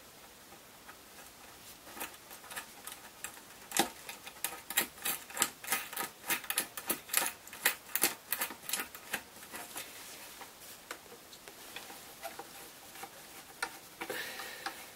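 Hand screwdriver tightening small dome-head screws into a plastic helmet shell, making a run of sharp, irregular clicks, about two or three a second and thickest in the middle, with a brief rustle near the end.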